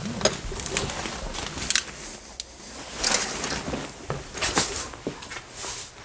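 Footsteps through dry leaves and brush, with irregular crackles and rustles.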